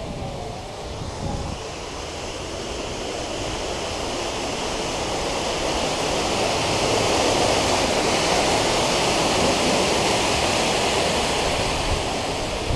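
A steady rushing noise that grows louder over the first several seconds and eases slightly near the end.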